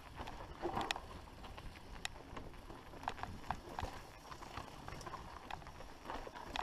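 Mountain bike rolling down a rocky dirt singletrack: tyres running over stones and dry leaves under a low steady rumble, with irregular sharp clicks and knocks as the bike rattles over rocks.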